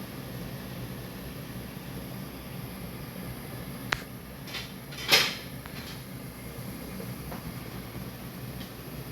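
Kitchen background with a steady low hum, a sharp click about four seconds in, and a brief clatter about five seconds in, the loudest sound here.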